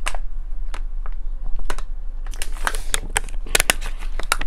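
Thin plastic water bottle clicking and crackling in the hand as it is drunk from and lowered, with a quick run of sharp clicks about two to four seconds in.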